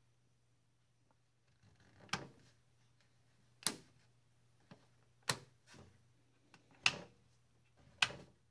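Rotary voltage selector switch on a MIG welder being clicked from position to position by hand: five sharp detent clicks about one and a half seconds apart, over a faint low steady hum.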